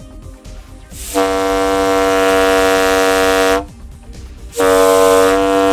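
Homemade 1-inch PVC diaphragm horn with a long inner tube and a thick rubber inner-tube diaphragm, blown hard by mouth. It sounds two long, steady, deep and loud horn blasts: the first starts about a second in and lasts about two and a half seconds, and the second starts just before the end.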